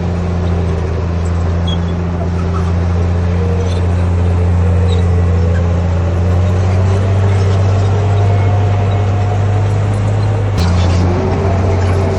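Heavy diesel engine of a Komatsu D58P bulldozer running steadily under load, a deep, even drone. About ten and a half seconds in there is a sharp click and the engine note shifts slightly.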